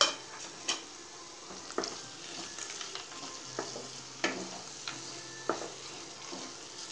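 Wooden spatula stirring and scraping thick, ghee-rich bread halwa around a non-stick frying pan, with a light sizzle from the hot ghee and a handful of sharp knocks where the spatula hits the pan.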